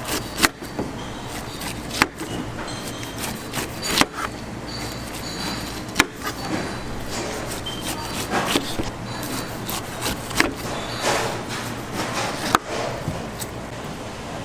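Knife cutting fruit on a cutting board: sharp knocks of the blade striking the board, several of them, mostly about two seconds apart, with scraping slicing sounds between, over steady market background noise.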